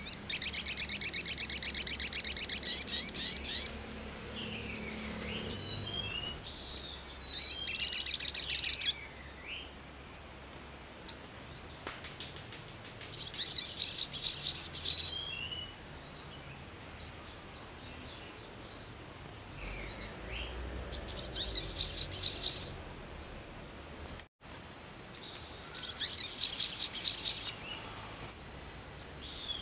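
Male olive-backed sunbird singing: five bursts of fast, high trilling song, each one to three seconds long, with thin short calls between them.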